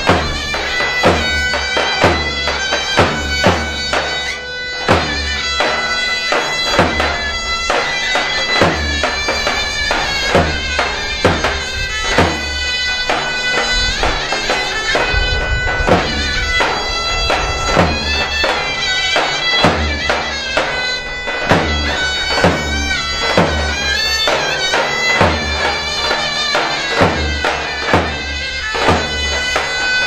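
Zurna and davul playing zeybek dance music: a reed melody over slow, regular drum strokes.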